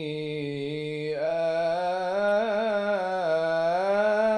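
Male voice reciting the Quran in melodic tajweed style, one long drawn-out phrase with small ornamented pitch turns. The pitch is low and level at first, rises about a second in, wavers in the middle and climbs again near the end.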